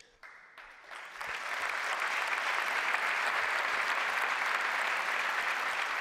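Audience applauding: a few scattered claps at first, swelling into full, steady applause about a second in.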